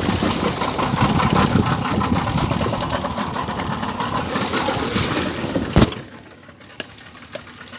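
Boat motor running steadily, with a sharp knock about six seconds in, after which the sound drops to a much quieter level.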